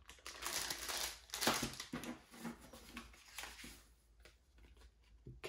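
Clear plastic bag holding a cable gun lock crinkling and rustling as it is handled and set down, with a few light clicks. The sound dies down after about three and a half seconds.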